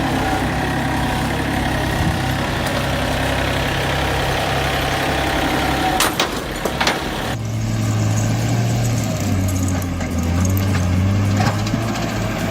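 Heavy machinery engine running steadily, with a few sharp clicks about six seconds in. About seven seconds in it changes abruptly to a different engine with a lower, steady hum.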